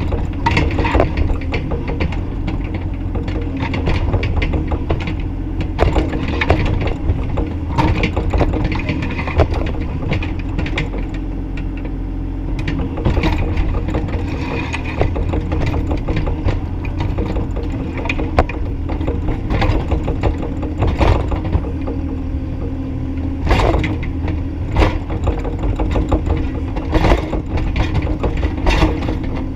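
Bobcat E35i compact excavator running steadily while working, with frequent sharp knocks and clanks over the engine's drone.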